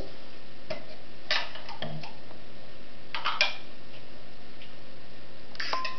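Light clicks and taps of a plastic toy spoon against a toy cooking pot, scattered and irregular, with clusters about a second in and again around three seconds, over steady background hiss.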